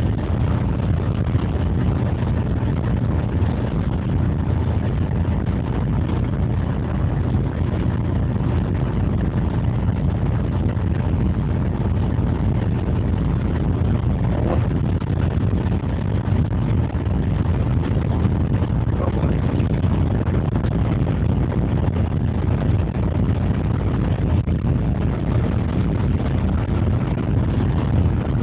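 Steady low rumble heard inside the cab of a 2TE116U diesel locomotive under way, from its 16-cylinder 5D49 diesel engine mixed with running noise from the wheels on the track.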